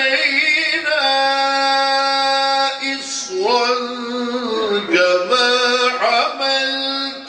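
A man reciting the Qur'an in the melodic, sung style, holding long steady notes joined by ornamented turns. He breaks off briefly about three seconds in and twice more near the end.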